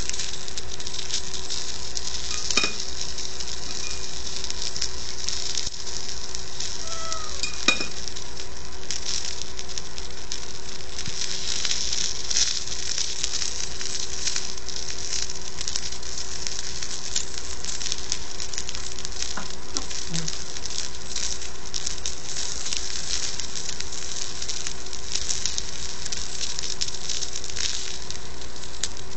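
Food sizzling on a tabletop hot plate: a steady crackling hiss, with a couple of sharp clicks about two and a half and eight seconds in.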